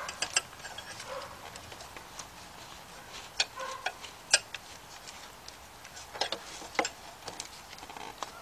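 Scattered, irregular light metallic clicks and clinks of hand tools, a socket on a swivel extension, being worked onto a bolt among the engine parts.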